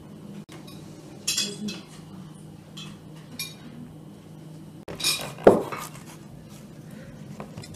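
Forks and knives clinking and scraping on china plates as people eat, in scattered short clinks. A louder knock of dishes sounds about five seconds in.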